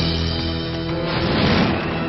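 Dramatic action-cartoon score that comes in suddenly and loudly at the start, with a noisy, crash-like sound effect swelling about a second in.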